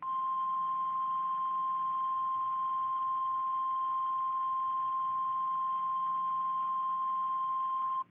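NOAA Weather Radio 1050 Hz warning alarm tone announcing an Emergency Action Notification: one steady, high-pitched tone held for about eight seconds over faint radio hiss, then cut off abruptly.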